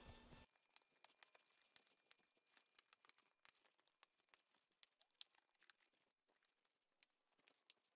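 Near silence, with faint scattered ticks.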